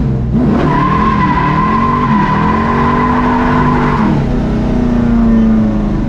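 Classic car's engine revving up and falling back several times as the car drives, with a steady high whine over the first few seconds.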